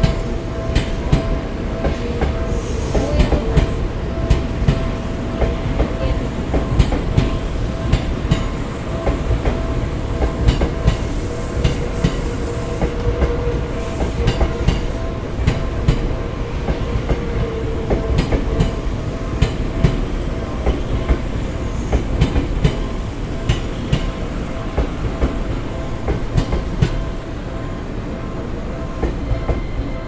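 Electric commuter train running past over a level crossing, its wheels clicking steadily over the rail joints, with brief high squeals about three and twelve seconds in. The crossing's warning bell rings on without a break over the train.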